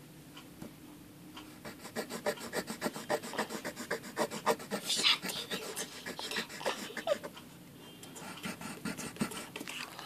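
Colouring pencil scratching on paper in quick back-and-forth strokes, filling in a colouring page; the strokes are strongest in the middle and grow fainter near the end.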